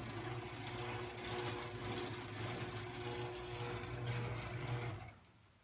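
Chamberlain half-horsepower chain-drive garage door opener running the door open: a steady motor hum over a rattling clatter, which stops about five seconds in as the door reaches the end of its travel.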